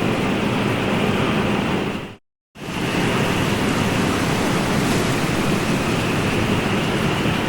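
Ocean waves and surf in a steady, dense wash of water noise. It fades out to a brief silence about two seconds in, then comes straight back.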